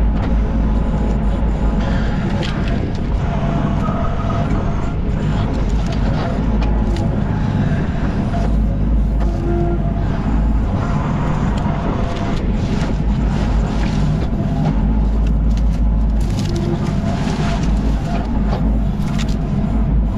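Yanmar Vio25 mini excavator's diesel engine running steadily under working load, with brief whines from the hydraulics and occasional sharp knocks and cracks.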